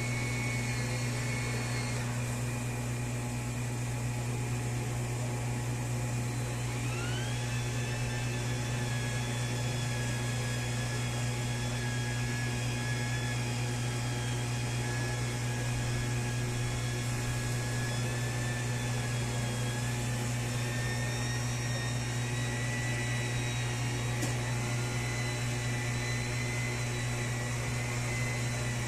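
Turbine Wash mini washing machine's motor running steadily, churning thickening dishwashing liquid, with a low hum and a whine that jumps up about seven seconds in and then slowly climbs.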